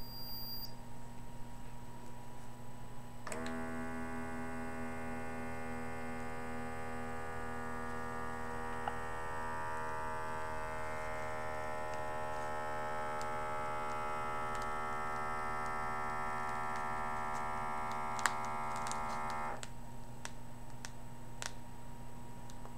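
Automatic upper-arm blood pressure monitor's small air pump humming as it inflates the cuff, starting a few seconds in, holding a steady pitch, and cutting off suddenly near the end. A few sharp clicks follow.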